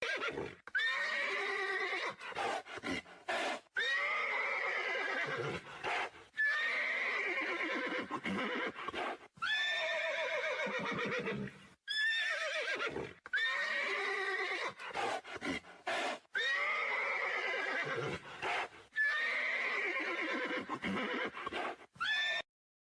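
Horses neighing: a series of long, quavering whinnies, one after another with brief pauses, and a few short, sharp sounds between them.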